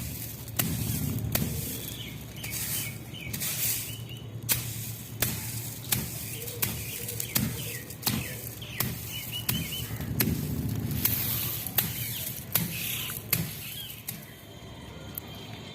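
Parrot giving short, soft chirps every few seconds, among many sharp clicks.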